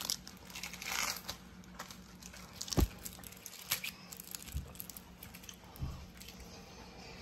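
Light crinkling and rustling with a few soft knocks, the sharpest about three seconds in.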